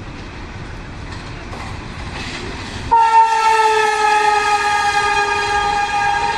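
Pakistan Railways Green Line express train passing through the station, its wheels rumbling on the track. About three seconds in, the locomotive sounds one long horn blast that holds to the end and sags slightly in pitch.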